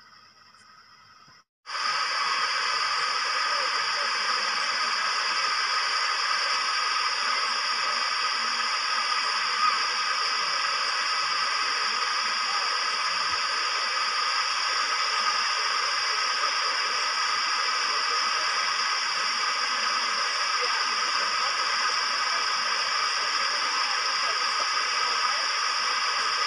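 A loud, steady hiss that sets in abruptly about two seconds in, after a moment of near silence, and holds unchanged.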